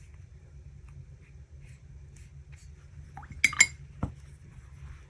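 A paintbrush clinking against a glass water jar, two quick clinks about three and a half seconds in, then a duller knock.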